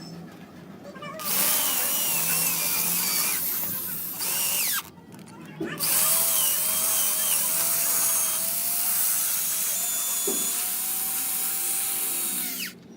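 Handheld power tool running under load in two long bursts, one of about three and a half seconds and one of about seven, its motor whine wavering in pitch.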